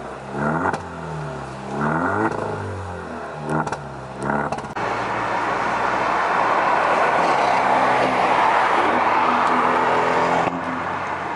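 Straight-piped Alfa Romeo Giulia exhaust revved three times while parked, each rev rising and falling, with sharp popping on the overrun. About five seconds in, it gives way to steady, loud road and wind noise inside a moving car.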